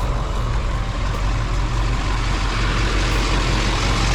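A vehicle engine running steadily at idle, with an even hiss over its low hum.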